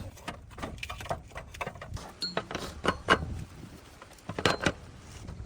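Irregular knocks and clicks, with the sharpest ones about three seconds in and a cluster a little before the end.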